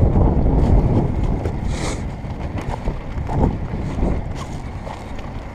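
1978 Yamaha YZ80's single-cylinder two-stroke engine running as the dirt bike is ridden, mostly covered by wind rumbling on the microphone.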